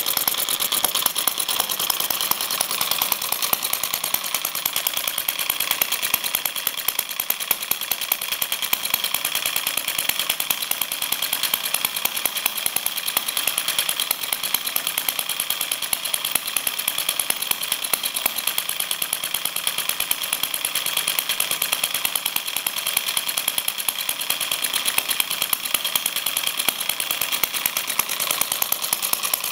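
Home-built water-cooled model engine with a horizontal cylinder and flywheel, running steadily with a rapid, even beat of firing and mechanical clatter.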